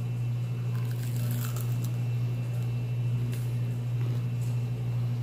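A person biting into and chewing a crispy breaded fried green tomato slice, with a few faint crunches, mostly in the first two seconds. A steady low hum runs underneath and is the loudest sound.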